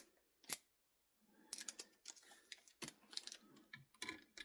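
Screwdriver hand-tightening the terminal screws on a wall switch: two sharp clicks, a brief pause, then a quiet run of irregular small clicks and scrapes.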